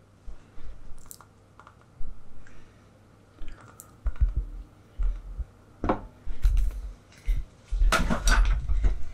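Gorilla Glue being squeezed from its bottle onto the half-lap joints of wooden frame pieces: a series of short squirts, with dull knocks as the wood is handled. The longest and loudest burst comes near the end.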